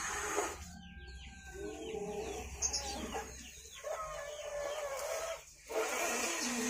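Chickens clucking and small birds chirping around, with a breathy hiss that breaks off soon after the start and comes back about six seconds in.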